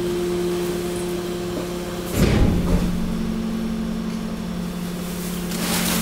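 Hydraulic waste compaction press running with a steady hum. About two seconds in there is a heavy clunk, and the hum then settles at a different pitch. Near the end the mixed waste and plastic bags crackle as they are crushed.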